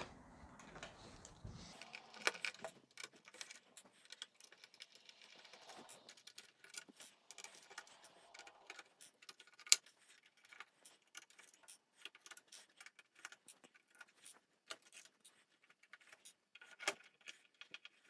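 Faint, irregular little clicks and scrapes of a small screwdriver working tiny screws out of a keyboard circuit board, with loose screws ticking as they are set down on a wooden table. One sharper click stands out a little before the middle.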